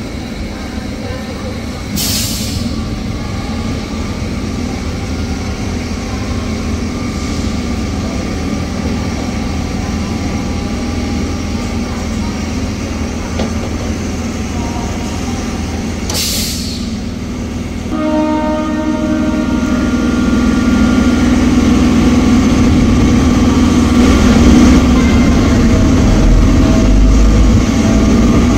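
Electric local train at a station: a steady low rumble, two short sharp hisses of air about 2 and 16 seconds in, and from a little past halfway a steady droning tone that joins in as the sound grows louder.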